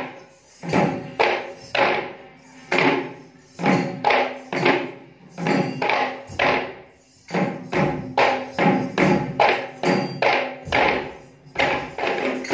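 Kandyan geta bera drums struck by hand, playing rhythmic phrases of ringing strokes separated by short breaks, the strokes coming faster from about eight seconds in.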